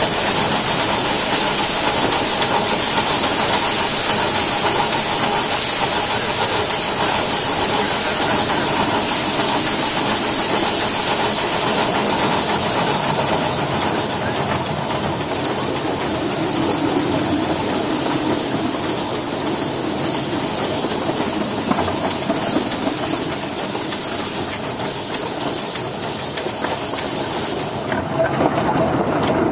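Steam hissing steadily from a Crown two-foot-gauge steam locomotive as it runs, cutting off suddenly near the end and leaving the quieter running of the train.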